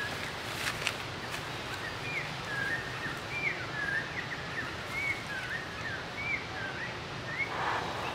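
A bird calling in short, repeated chirps over steady outdoor background noise, with a brief rustling scuffle near the end.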